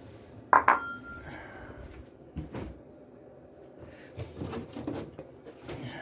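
A dog's bowl being handled, with two sharp clinks about half a second in, the second ringing briefly, followed by softer knocks and clattering.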